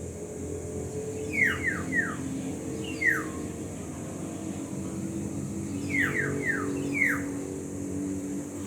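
Black-naped orioles giving short whistled notes that each slide downward, first a run of three, then a single note, then a run of four, over a steady low hum.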